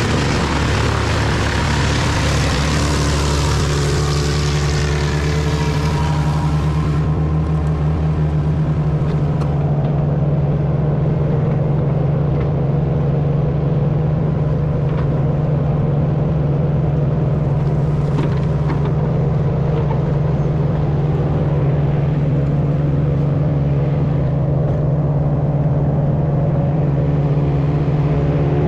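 Large Bandit wood chipper's engine running steadily under load, with a loud rushing hiss of chipping over the first seven seconds or so that then falls away.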